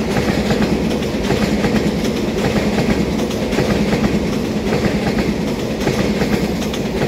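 Taiwan Railway EMU3000 twelve-car electric multiple unit passing close by: a steady rumble and hum, with the wheels clicking over the rail joints.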